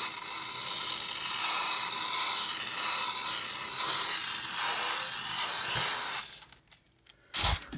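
Aerosol air freshener can spraying in one continuous hiss for about six seconds, then cutting off. A short sharp knock comes near the end.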